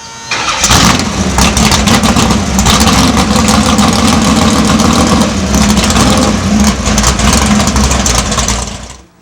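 A loud car engine running hard and revving, with rapid crackling through it. It starts a moment in and cuts off abruptly near the end.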